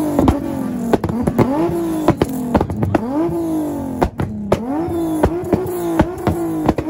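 Infiniti G-series sedan's V6 being revved repeatedly through its exhaust, about once a second. Each rev climbs quickly and falls back, with sharp pops and crackles from the exhaust on the way down.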